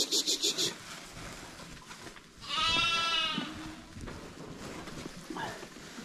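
Lambs bleating: one loud bleat about two and a half seconds in, lasting about a second, and a faint short one near the end. In the first second a fast, high pulsing sound, about seven pulses a second, stops abruptly.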